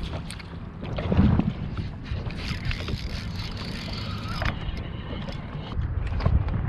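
Wind rumbling on the microphone, with scattered light clicks.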